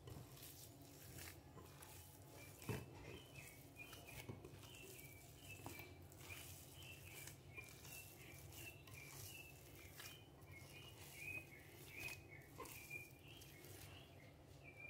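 Faint soft squishing and pattering of a hand mixing sticky mashed-banana and cassava-flour dough in a glass bowl, with one soft knock about three seconds in. Small birds chirp over and over in the background.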